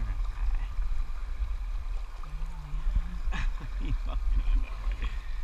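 Whitewater rapids rushing around a kayak, a steady churning rush of river water with a low rumble, with a few short vocal sounds from a person about three to four seconds in.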